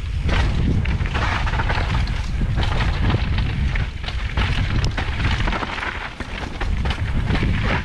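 Wind buffeting a helmet-mounted camera's microphone, mixed with the rumble and rattle of a mountain bike rolling down a rough dirt and rock trail, with many small knocks as it goes over stones and roots.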